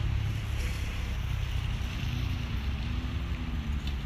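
Wind buffeting the microphone: a steady low rumble with noise on top. About halfway through, a faint wavering tone comes in under it.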